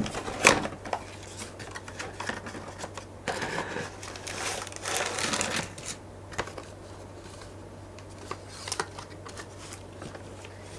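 Hands handling a cardboard plastic-model kit box and the plastic bags of grey parts sprues inside: scattered taps and knocks on the box, with rustling of the bags for a couple of seconds in the middle.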